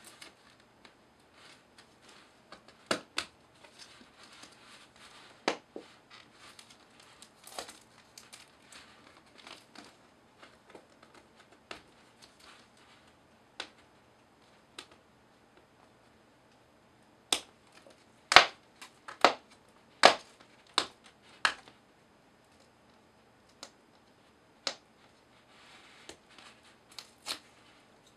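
Packaging being opened and handled during a keyboard unboxing: crinkling and rustling with scattered sharp knocks and clicks, the loudest in a cluster about two-thirds of the way through.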